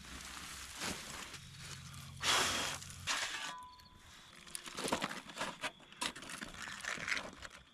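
Scraping and digging through loose ash and coals for the first few seconds. Then aluminium foil crinkles and crackles as a foil-wrapped package is pulled open by hand.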